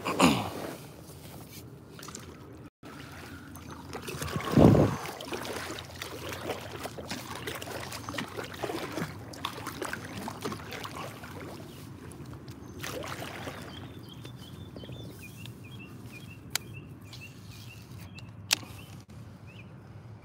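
Water sloshing and trickling around an inflatable boat, with two louder whooshing sweeps that fall in pitch, one right at the start and one about four and a half seconds in. A couple of sharp clicks come later on.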